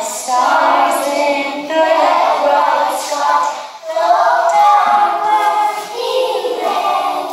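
A group of young children singing together in unison, in two sung phrases with a short break about halfway through.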